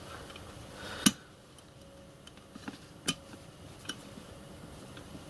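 Pliers and small metal parts clicking and tapping together as a tiny pin is lined up through the latch and latch lever of a model locomotive reversing stand. There are a handful of sharp, separate clicks; the sharpest comes about a second in.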